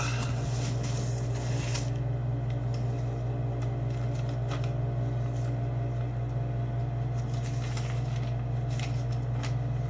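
A steady low hum, with light rustling and small scattered clicks as brake parts are handled and turned over.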